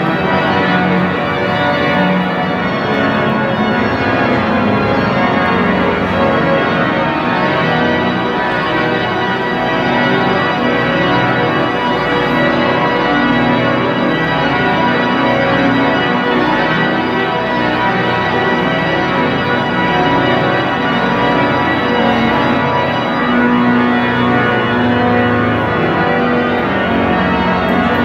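The great pipe organ of Notre-Dame de Paris playing loud, dense, sustained full chords at a steady level.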